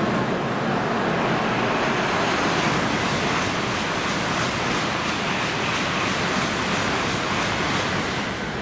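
N700-series Shinkansen passing through a station at high speed without stopping: a steady, loud rushing noise as the cars go by.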